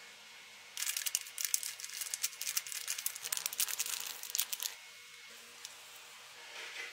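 Plastic candy packet crinkling as it is torn open by hand, a rapid run of crackles lasting about four seconds, followed by a brief rustle near the end.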